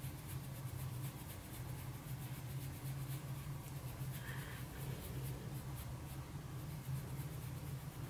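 Faint, rhythmic scratchy brushing of a Morphe M57 bronzer brush buffed over the cheek in small circular strokes, over a steady low hum.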